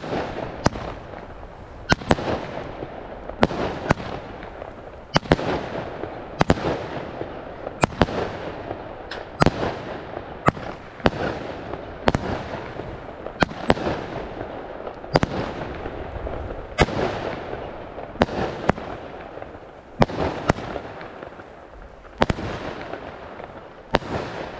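A consumer fireworks battery (cake), the "Matrix", firing shot after shot, about one a second. Each is a sharp bang that trails off in a fading echo.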